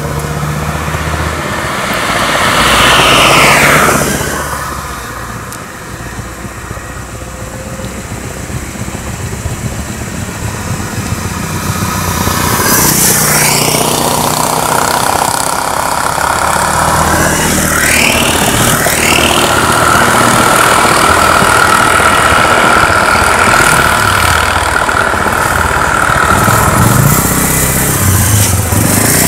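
Road traffic: motor vehicles driving past one after another with engines running, each swelling and fading as it goes by. The loudest pass comes about three seconds in, and a few more follow later, among them cars and a three-wheeler auto-rickshaw.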